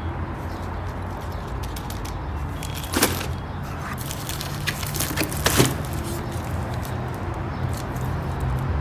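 Handling noise while unboxing a heavy electromagnetic door lock: scattered small clicks and two sharper knocks, about three and five and a half seconds in, over a steady low hum.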